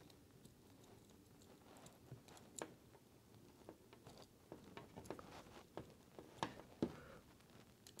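Faint, scattered small clicks and rustles of hands handling stranded copper wires and a clear plastic AC plug connector while fitting the wire ends into the plug's terminals; the clicks come more often after about four seconds.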